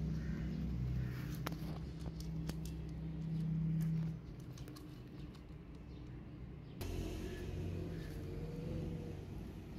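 Low steady hum of a motor vehicle engine that drops away about four seconds in, with scattered light clicks of a cat crunching dry kibble from a plate.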